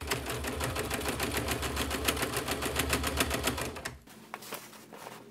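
Electric sewing machine running and stitching through layered upholstery fabric: a fast, even clatter over a low motor hum that stops about four seconds in, followed by a few faint handling clicks.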